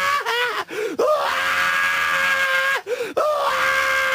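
A man's voice doing an exaggerated impression of a guest's overbearing laugh, as long, loud, high-pitched held howls. There are two howls of about a second and a half each, and short wavering cries come between them.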